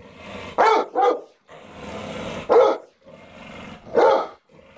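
Pit bull barking with its head thrown back: four short, high, yowling barks, two close together near the start, then one in the middle and one near the end. A lower grumbling growl runs in the gaps between them.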